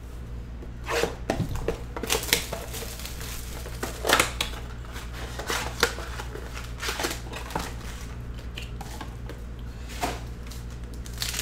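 A cardboard blaster box of football trading cards being torn open and its packs pulled out and handled: scattered short tearing, crinkling and tapping sounds over a low steady hum.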